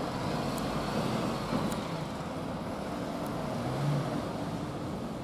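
Road traffic crossing a level crossing: a lorry, then a van and cars driving over, a steady noise of engines and tyres with a small swell about four seconds in.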